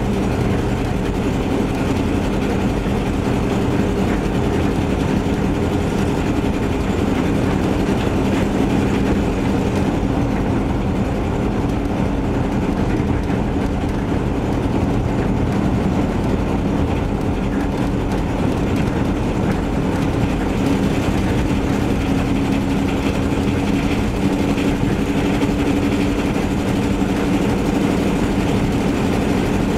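Camper van's engine and leaking exhaust running steadily on a test drive, a continuous drone whose pitch shifts slightly with engine speed. The leak is from a bad exhaust donut gasket, with both mufflers rusted out.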